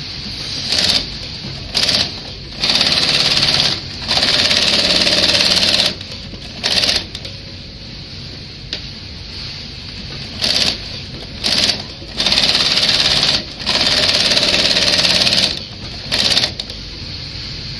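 TOPEAGLE TR-168/2 shoe sewing machine stitching a sole onto a skating shoe in stop-start runs, about ten in all: some short blips, others a second or two long. A lower steady noise carries on between runs.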